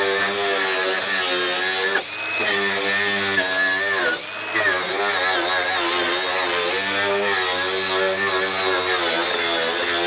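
A handheld power tool's motor running under varying load, let off briefly twice, about two and four seconds in, and spinning back up each time.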